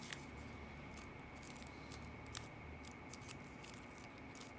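Faint, scattered crackles and soft clicks of a paper dollar bill being pinched, creased and pressed flat between the fingers while it is folded.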